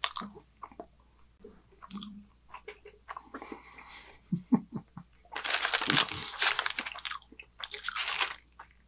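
Close-miked chewing and crunching of food, with wet mouth clicks and smacks. A longer hissing rush of noise comes about five seconds in and lasts over a second, with a shorter one near the end.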